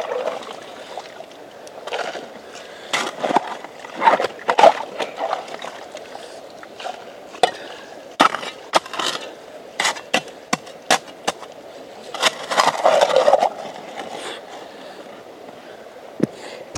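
Steel shovel digging into stony gravel: irregular scrapes of the blade and sharp clinks as it strikes stones, with a longer grinding scrape about three-quarters of the way through.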